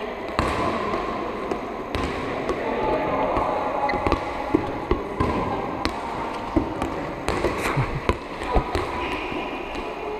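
Lightweight balls being hit up with the hands and bouncing on a sports hall floor: scattered thuds and slaps at irregular intervals, echoing in the large hall.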